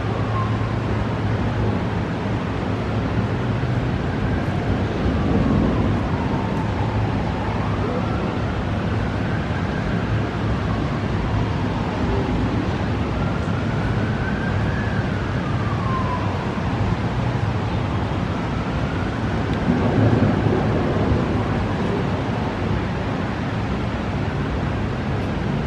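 An emergency-vehicle siren wailing, rising and falling slowly every few seconds, over the steady hiss of storm rain and wind. Low rumbles of thunder swell about five seconds in and again, louder, near twenty seconds in.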